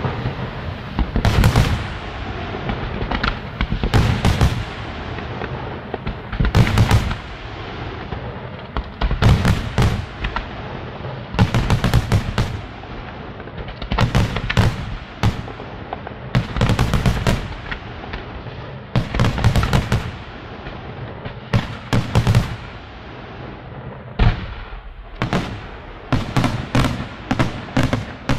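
Fireworks display: aerial shells firing from ground mortars and bursting in a steady series of loud booms every second or two, with crackling between them. A quicker run of bangs comes near the end.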